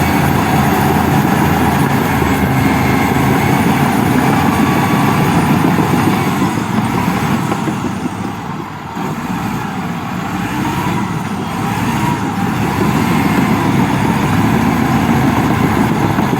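Engine of heavy construction machinery running steadily. It eases off briefly about halfway through, then picks up again.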